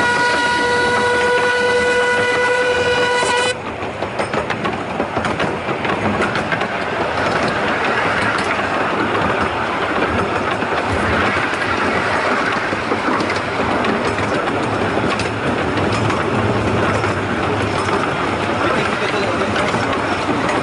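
A miniature-railway steam locomotive sounding one long steady whistle that stops sharply about three and a half seconds in. After it comes the steady running noise of the train, with the wheels clicking over the rail joints.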